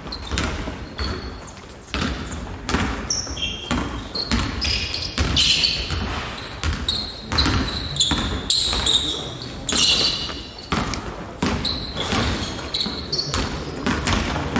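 Basketball bouncing on a hardwood gym floor during a dribble, pass and cut drill, with many short sharp thuds and sneakers squeaking on the court.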